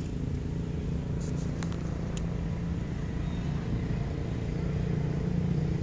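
A motor vehicle's engine running steadily as a low hum, getting slightly louder near the end, with a few faint clicks over it.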